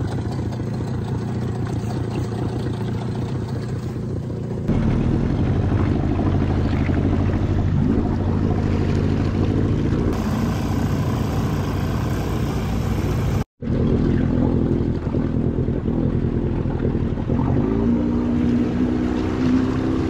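Small outboard motor running steadily as it pushes an inflatable dinghy under way, with a brief dropout about two-thirds of the way through.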